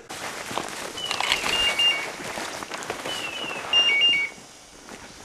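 Brush and undergrowth rustling as someone walks through it. Over it, an electronic beeper on a hunting dog's collar sounds twice, about one and three seconds in, each time a few short falling chirps and then steady two-pitch beeps.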